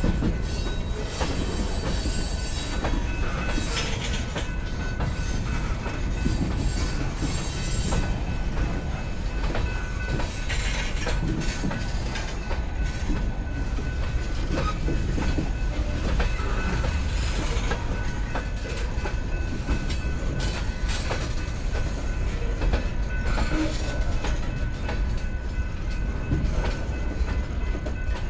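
Slow freight train of tank cars rolling past: a steady rumble of steel wheels on rail, with irregular clicks and clunks as the wheels cross rail joints.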